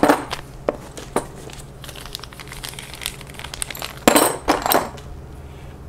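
Small plastic parts bag crinkling and rustling as parts are taken out of it, with light clicks of the parts being handled; two louder rustles come about four seconds in.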